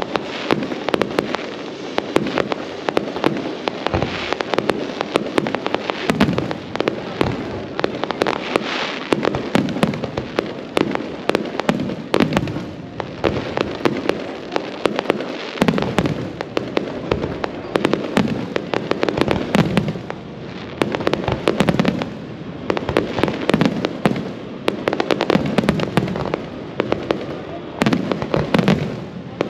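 Fireworks display: a dense, rapid barrage of aerial shell bangs and crackling, many reports a second without a break.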